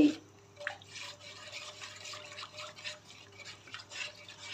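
A spatula stirring and scraping through a thin, watery sauce in a nonstick pan: a run of repeated strokes with liquid sloshing, starting about half a second in. The seasonings are being stirred in to dissolve as the sauce heats toward a boil.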